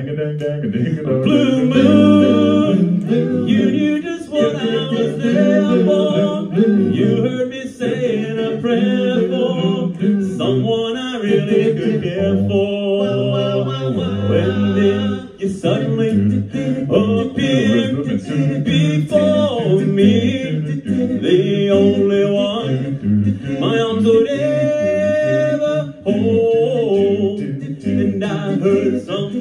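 Four-man male a cappella group singing in harmony into stage microphones, a low bass part stepping under the upper voices.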